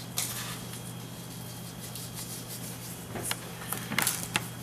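Quiet kitchen room tone with a steady low hum, broken by a few faint rustles and light clicks as salt and pepper are sprinkled over potatoes in a stainless steel bowl: once just after the start, and a small cluster near the end.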